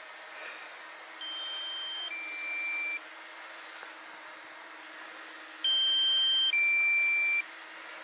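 Two pairs of two-tone electronic alert beeps from a DJI Mavic Mini's remote controller and flight app, each a higher tone stepping down to a lower one, the second pair louder: a low-battery warning. A steady hum from the hovering drone runs underneath.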